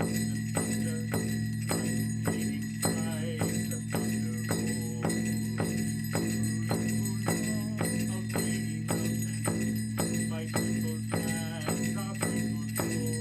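Large powwow drum struck in a steady, even beat of about two strokes a second, over a steady drone, with a faint wavering melody between the strokes.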